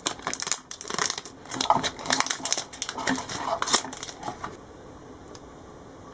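Clear plastic bag crinkling and rustling in the hands as an Echo Dot's power adapter and cable are unwrapped from it; the crackling goes on for about four and a half seconds, then stops.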